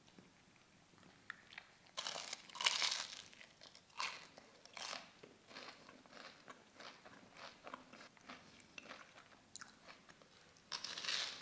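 Crisp, bread-crumb-coated fried chocolate donut being bitten and chewed. Loud crunches come about two seconds in and again near four seconds, softer chewing crunches follow, and there is another loud crunch near the end.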